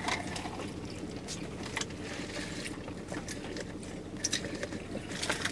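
Quiet car interior: a steady low hum with scattered faint clicks and rustles, among them a couple of brighter ticks about four seconds in and again near the end.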